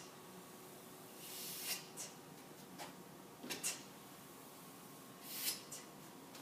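Felt-tip magic marker drawn across paper in a few quick, swishing strokes, with short pauses between them.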